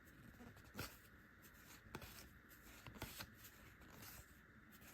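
Faint rustling and soft clicks of Pokémon trading cards being slid one behind another in the hand, with a few sharper ticks about a second apart.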